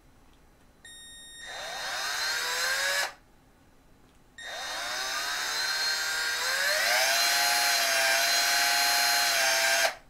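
Cordless drill-driver driving screws through a thermostat base plate into drywall, in two runs. The first is about two seconds long, the second about five, and each is a motor whine that rises in pitch as it spins up and cuts off suddenly.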